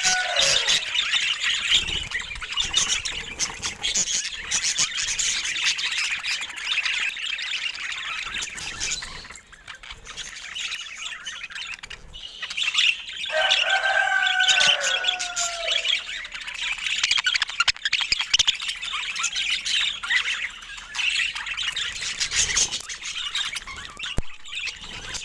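Budgerigars chattering and chirping without pause, with a louder call that falls in pitch about thirteen seconds in.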